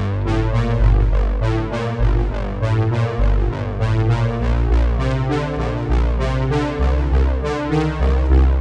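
Instrumental music carried by synthesizer and keyboard over a heavy bass line.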